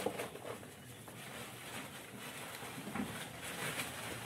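Goats feeding at a wooden trough: faint rustling of leafy feed and chewing, with a few small clicks and knocks.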